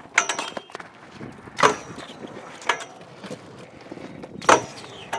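BMX bike being ridden: four sharp metallic knocks and clanks at irregular gaps of one to two seconds, some with a brief high ring, as the bike's metal parts strike and land.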